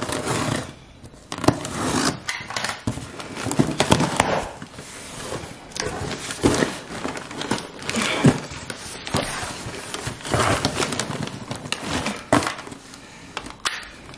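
A utility knife slices through the packing tape on a cardboard box, and then the taped cardboard flaps are torn and pulled open. The sound is a run of irregular scrapes, rips and crackles.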